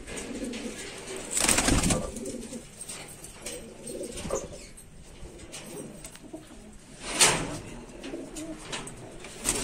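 A loft full of domestic pigeons cooing continuously. Two short, loud rustles break through, one early on and one a little past the middle.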